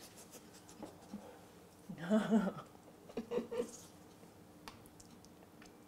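Mostly quiet room, with a short hummed "mm" from a taster about two seconds in, a couple of smaller murmurs just after, and a few faint clicks.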